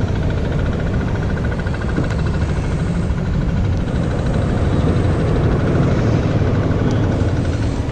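Outdoor city ambience: a loud, steady low rumble, with a faint, rapidly pulsing high tone running through most of it.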